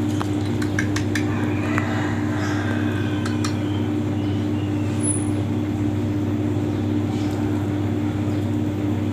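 A steady engine-like hum at one constant pitch, with a few light clicks in the first three seconds or so.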